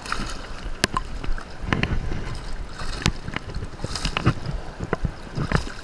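Hooked summer flounder thrashing at the water's surface as it is pulled in by hand, with sharp irregular splashes over water sloshing around the angler.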